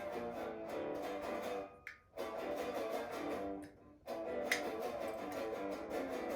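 Guitar playing quickly picked notes, breaking off briefly twice, with a single sharp click about four and a half seconds in.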